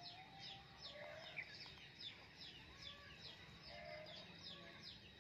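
Faint outdoor bird ambience: many quick descending chirps from small birds, several a second, with a few lower, drawn-out calls mixed in.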